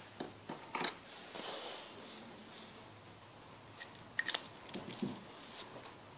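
Faint clicks and light taps of colouring pens being handled and sorted through, a few scattered knocks over quiet room tone with a small cluster of them about four seconds in.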